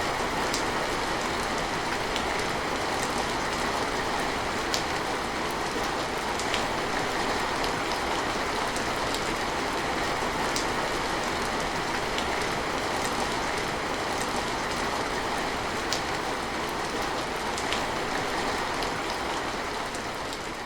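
Steady rain falling, an even hiss with scattered sharp drop ticks, beginning to fade out near the end.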